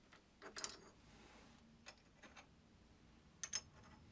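Faint clicks and clinks of an Allen key and steel clamp parts handled on a milling machine table: a cluster of clicks about half a second in, a few single clicks after, and two short ringing metal clinks about three and a half seconds in.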